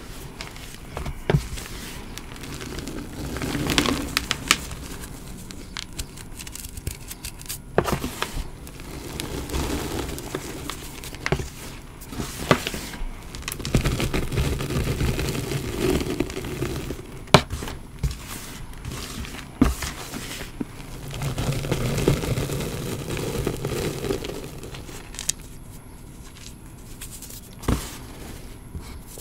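Hands pressing, scooping and dropping crushed chalk and cornstarch powder in a tray: soft swishing puffs that swell several times, with sharp little crackles of crunchy bits throughout.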